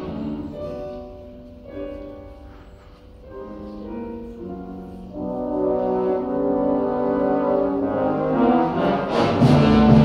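Orchestra playing a ballet score: sustained notes that fall quiet about three seconds in, swell again, and build to a loud, full passage near the end.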